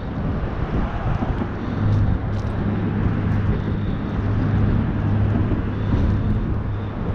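A motor engine of passing traffic, heard as a steady low hum under a rushing noise, swelling about two seconds in and again a few seconds later.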